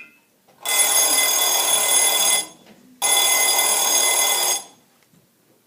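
Telephone bell ringing twice, each ring about a second and a half long with a short pause between.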